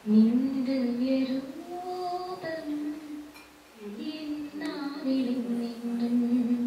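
A woman singing a Malayalam Christian devotional song with no accompaniment, in long held notes that slide slowly up and down, pausing for a breath a little past the middle. Heard through a television's speaker.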